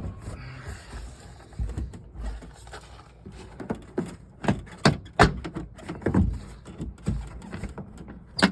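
Plastic interior trim panel being worked loose by hand: irregular knocks, taps and scrapes of hard plastic, about a dozen sharp ones, with low handling rumble.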